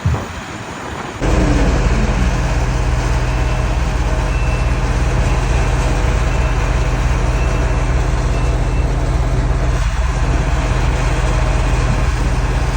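A heavy vehicle's engine running steadily with a low hum, starting abruptly about a second in.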